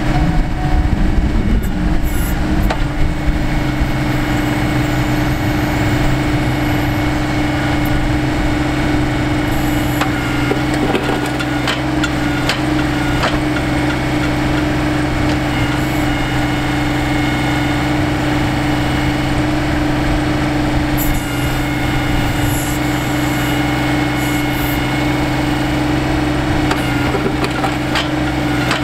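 John Deere 2025R compact tractor's three-cylinder diesel engine running steadily while its 270A backhoe digs, with scattered short knocks from the bucket working the soil.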